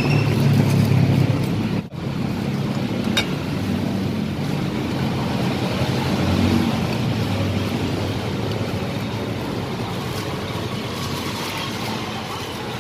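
Motor-vehicle traffic passing on a busy street, a steady engine rumble that swells and fades as vehicles go by. The sound breaks off sharply for a moment about two seconds in.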